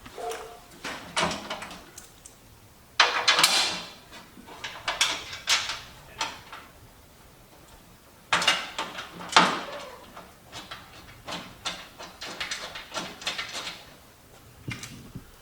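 Irregular clunks, knocks and scrapes of a metal flat fender panel being handled and fitted against a Jeep's body, with two sharper knocks about three seconds and eight seconds in.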